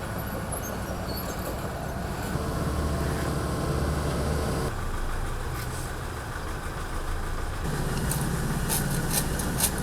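Engines of road-repair machinery and trucks running steadily during night pothole patching, with a run of sharp knocks or clicks near the end.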